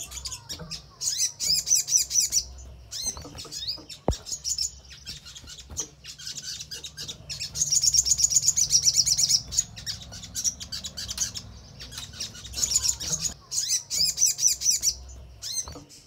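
Little spiderhunter (sogon) calling with its beak open: repeated bursts of rapid, high-pitched chattering trills, each lasting one to two seconds, with short pauses between.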